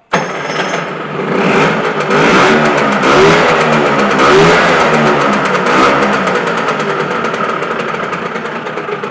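Piaggio Ape 50's small two-stroke engine, fitted with a DR 102 cc cylinder kit, starting up at once. It is revved up and down several times, then settles back toward idle.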